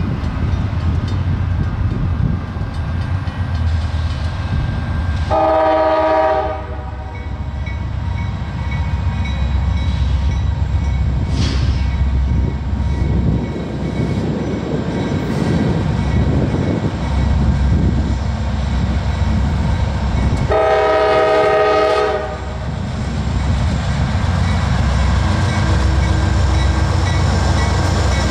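Diesel freight train running with a steady low rumble, its locomotive air horn sounding a chord in two blasts, each about a second and a half long: one about five seconds in and one near twenty seconds in.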